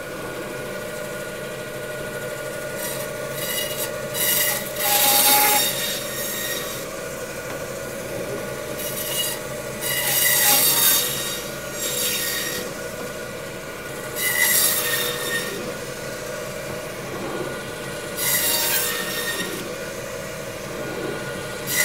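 Meat band saw running with a steady hum, its blade screeching and rasping as it cuts through bone and meat of a dry-aged porterhouse section in several passes a few seconds apart, cutting it into porterhouse steaks.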